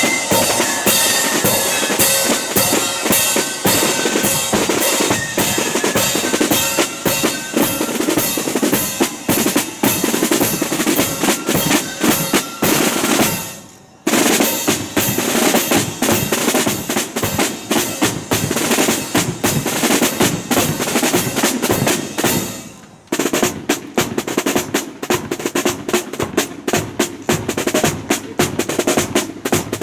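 Marching flute band playing: flutes carry a tune over side drums, bass drum and cymbals. About 13 seconds in the music breaks off briefly, then the side drums continue alone with rolls over the bass drum beat, stopping again for a moment near the 23-second mark before starting up with faster rolls.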